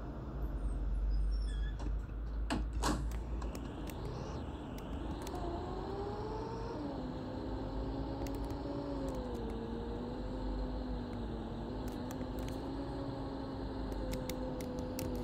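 Mercedes-Benz OC500LE bus running. A low rumble is followed by a rising whine from about five seconds in that jumps in pitch near seven seconds, as at a gear change, then holds a steady note with slight wavers as the bus keeps moving. A single sharp click sounds about three seconds in.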